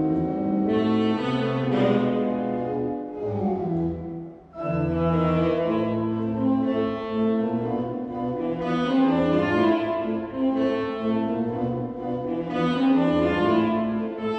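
Instrumental music: slow, sustained melody notes over held accompanying chords, with a brief dip in loudness about four seconds in.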